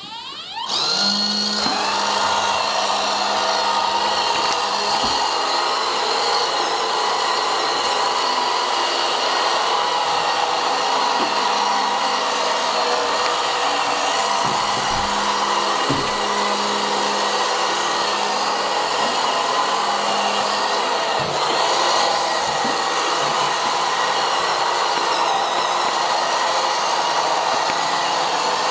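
Vileda robotic vacuum cleaner's motor spinning up about a second in, then running steadily with a high whine. A few faint knocks come through it.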